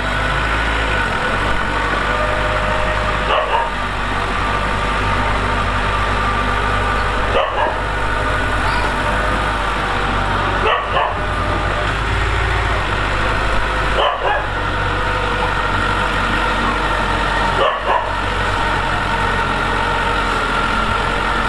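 Diesel engine of heavy earthmoving equipment running steadily, with a short sharp sound cutting in five times, about every three and a half seconds.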